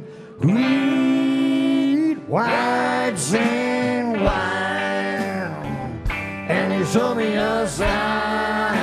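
Southern rock band playing live: a male voice singing long held notes over electric guitar, with a few drum or cymbal hits.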